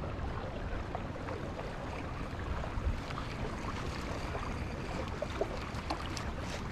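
Steady rumble of wind and water around a small fishing boat on open water, with a few faint clicks near the end.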